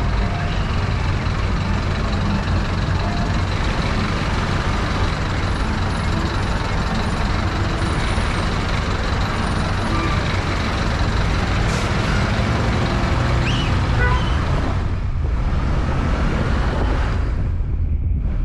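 Road and traffic noise from a vehicle driving slowly through city streets: a steady low rumble with motorcycle and car engines around it. The high end drops away shortly before the end.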